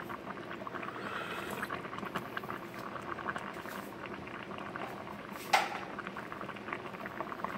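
Pot of vegetable soup boiling, a steady crackle of bubbles, with a single sharp knock about five and a half seconds in.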